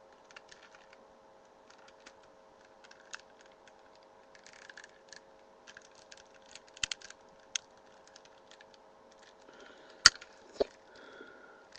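Small plastic clicks and taps from a Digimon action figure being handled, its parts twisted and pressed into place, with a few sharper clicks about seven and ten seconds in. A steady faint hum runs underneath.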